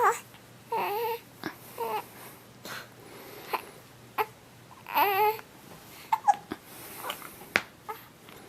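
Baby fussing with short high-pitched whimpering cries, the longest and most wavering about five seconds in, broken by several short sharp hiccups.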